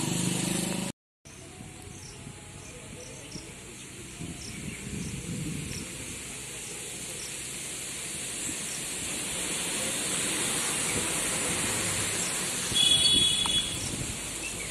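Steady rain falling, slowly growing louder, with a short high-pitched tone near the end.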